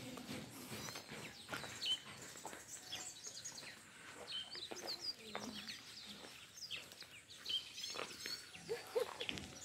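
Small birds chirping in short, scattered high calls, with a few faint clicks.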